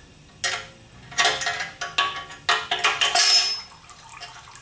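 Metal tools and parts clanking and clinking during a TH400 transmission teardown: an irregular string of sharp metallic clanks over about three seconds, stopping about three and a half seconds in.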